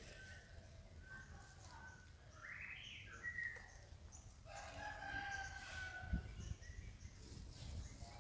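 Several drawn-out animal calls in turn: one with a rising shape about a third of the way in, and a long, steady call of about a second and a half in the second half. A brief low thump comes just after the middle.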